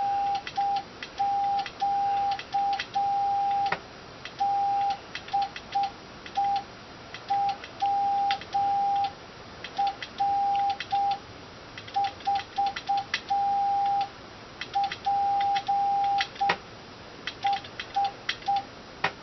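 Morse code CW sidetone from an HF amateur transceiver: a steady beep of one pitch keyed on and off in dots and dashes, the radio keyed wirelessly through a relay. Sharp clicks come with the keying.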